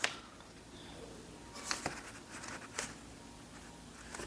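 Paper and packaging being handled quietly: faint rustling and a few soft taps, about two seconds in and again near three seconds.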